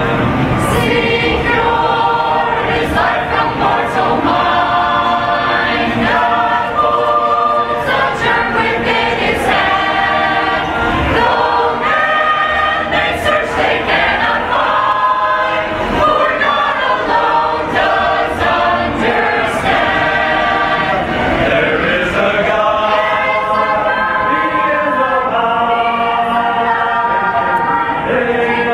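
Mixed choir of Mennonite men and women singing a cappella, several voice parts at once in a continuous song with no instruments.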